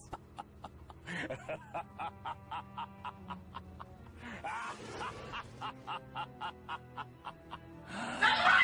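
A short meme sound-effect clip of music: quick, evenly spaced staccato notes, about three or four a second, over a faint steady low drone.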